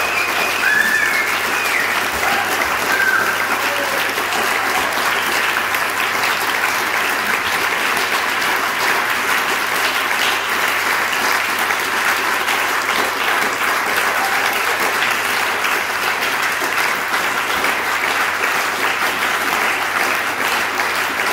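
Audience applauding steadily after a dance performance, a dense patter of many hands clapping, with a faint low hum underneath.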